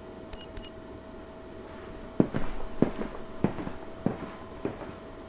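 Foley footsteps: a walker's steps, about seven, evenly paced roughly every half second or so, starting about two seconds in, over a faint steady hum.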